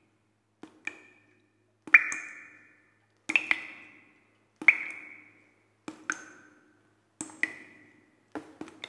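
A series of sharp, hard knocks, seven in all, about one every 1.3 seconds. Each is a quick double strike followed by a brief high ringing that dies away.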